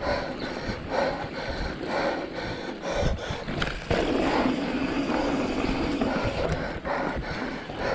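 Mountain bike riding along a sandy dirt singletrack: tyres on the dirt and the bike rattling over the trail, turning into a steadier rushing sound from about four seconds in.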